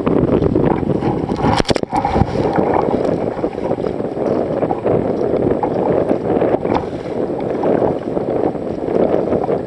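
Wind buffeting the microphone with choppy sea water washing around a sea kayak, a loud, unsteady rushing noise. A short knock-like sound comes about two seconds in.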